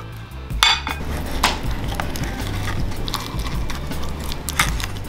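A metal spoon scraping and clicking against the inside of a cooked brown crab's shell, scooping out the brown meat, with a few sharper clicks.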